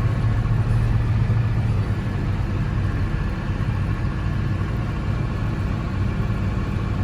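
Diesel engine of a John Deere farm machine running steadily under snow-clearing work, with a constant low drone.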